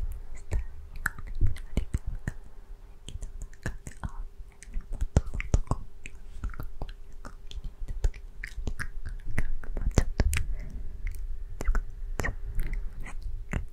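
Close-up, deliberately unintelligible whispering into a microphone cupped by a hand, full of quick wet mouth clicks, with low rumbles from the hand touching the mic.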